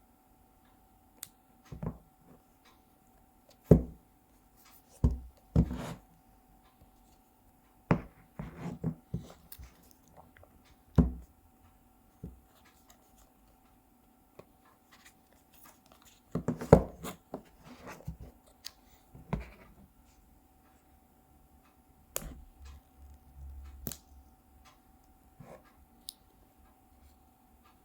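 Hands handling an iPhone 13 Pro box and its packaging: irregular knocks, taps and short scraping and rustling of cardboard and paper, with the sharpest knocks about four seconds in and near the middle.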